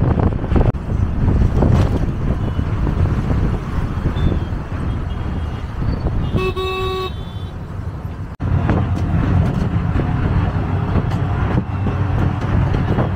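Steady low rumble of engine and road noise from inside a moving auto-rickshaw on a city road. A vehicle horn toots once, for under a second, about halfway through, and the sound drops out for an instant just after.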